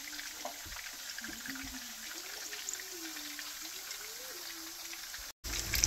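Breaded muskie fillets frying in olive oil in a nonstick skillet at medium heat: a soft, steady sizzle and crackle of the oil. It cuts out briefly near the end and comes back louder.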